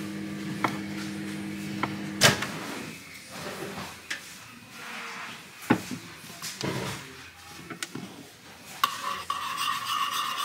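A spoon and a ceramic soup bowl being handled and stirred: scattered clinks and knocks on the bowl and worktop. A low steady hum stops with a sharp clack about two seconds in, and a steady higher tone comes in near the end.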